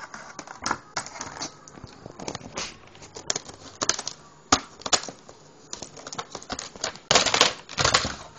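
Irregular clicks and taps of hard plastic parts of a 2000 Honda Accord instrument cluster being handled during disassembly, with two longer, louder scraping bursts near the end.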